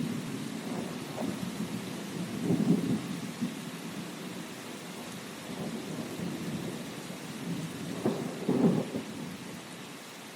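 Steady rain hiss during a thunderstorm, with low rolling thunder that swells about two and a half seconds in and again about eight seconds in.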